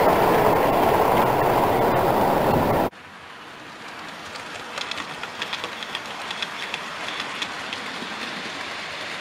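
Model railway train running on the layout: a loud steady rolling rumble of model coaches passing close by, which cuts off about three seconds in. It is followed by a quieter rolling sound with light irregular clicking of model coach wheels over the rail joints and pointwork, the clicks coming more often after a couple of seconds.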